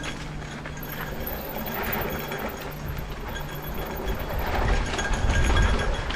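Mountain bike rolling down a dry dirt trail: tyre noise and the bike's rattling, with wind rumbling on the microphone, growing louder over the last second or two.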